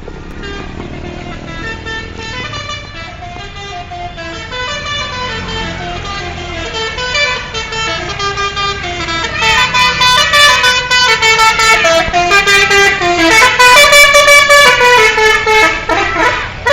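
Indonesian bus 'telolet' horn, a multi-tone musical horn, playing a quick stepping tune of many short notes. It grows louder and is loudest from about nine seconds in until near the end.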